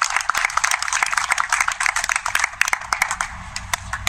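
A small crowd applauding, many hands clapping, the claps thinning out about three seconds in.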